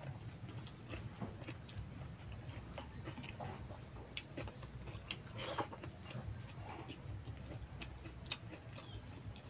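Close-up eating sounds of a person eating rice by hand: chewing and lip smacks with many small irregular clicks, and a couple of louder smacks about five seconds in.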